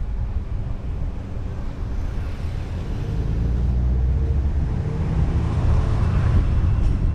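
Car driving slowly along a street, heard from a roof-mounted camera: a steady low rumble of wind on the microphone mixed with road and engine noise, growing a little louder about five seconds in.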